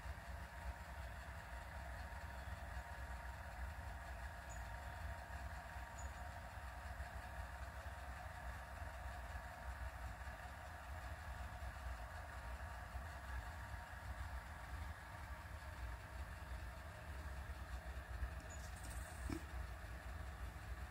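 Steady low background rumble with a faint hiss, unchanging throughout; a brief rustle and a light tap near the end.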